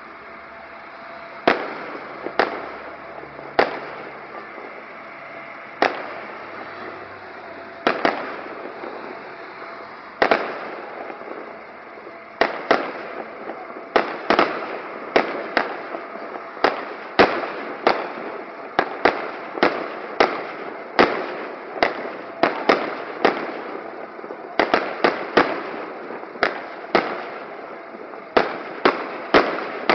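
Aerial fireworks bursting in the sky: sharp bangs, one every second or two at first, then coming faster from about halfway through, in clusters of several a second.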